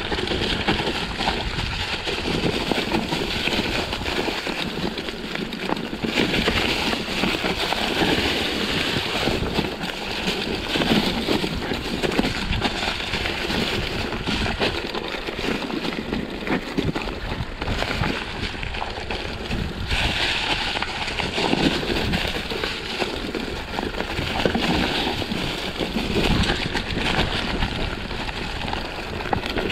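Mountain bike ridden down a rough trail: a constant rattle and rush of tyres over stones and roots, with wind on the microphone, swelling at times.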